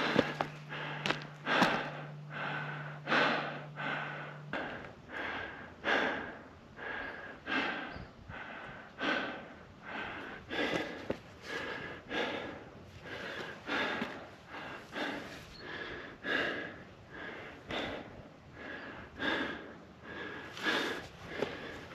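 A hiker breathing hard and fast through the mouth from the exertion of a steep climb, breaths in and out following each other in a quick, even rhythm.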